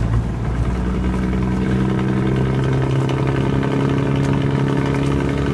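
Outrigger boat's engine running at a steady, even pitch over a low rumble; the engine note becomes clear and steady about a second in.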